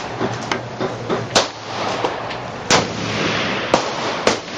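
Rifle shots at a shooting range: four sharp cracks, irregularly spaced, about a second and a half in, near three seconds, and twice near the end, with fainter pops between them.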